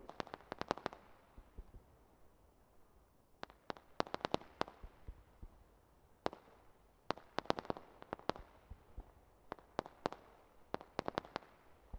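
Fireworks crackling: quick runs of sharp cracks and pops, coming in clusters a second or two apart.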